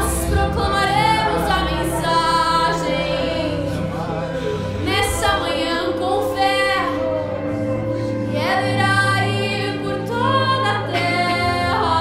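A woman singing a slow worship song with long held notes, accompanied by acoustic guitar and keyboard.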